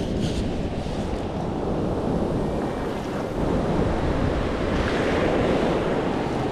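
Shallow surf washing in over wet sand, with wind on the microphone; a wave's wash swells up about five seconds in.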